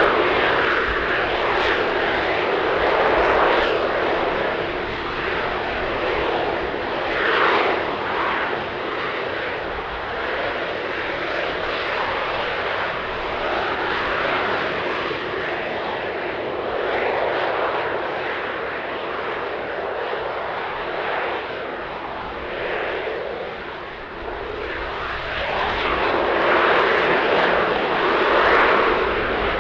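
AV-8B Harrier II's Rolls-Royce Pegasus vectored-thrust turbofan holding the jet in a hover: a rushing jet noise that swells and eases every few seconds.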